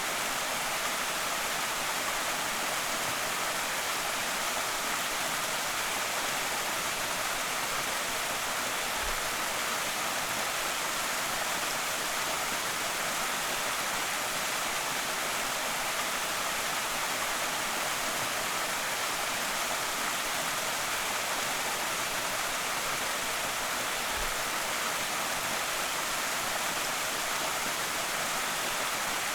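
A waterfall on a small creek, its water crashing and rushing in a steady, unbroken hiss.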